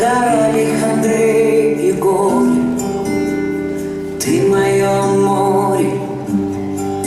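Song playing with a singing voice over sustained instrumental chords.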